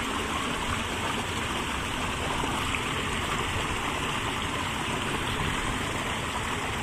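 Steady rushing of water flowing along a concrete irrigation channel.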